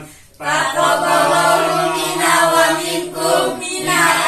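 A group of men and women calling out an Eid al-Fitr greeting together in unison, starting about half a second in.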